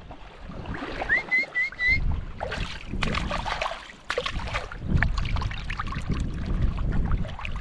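Hand swishing a fish carcass through shallow seawater, splashing and sloshing as bait to draw in sharks. A few short high chirps come about a second in.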